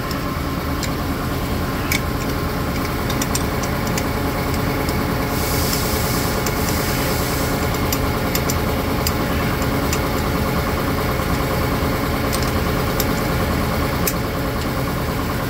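Steady machine hum from a running motor, with scattered light metallic clicks as an open-end wrench works a turret bolt loose. There is a brief hiss about five and a half seconds in.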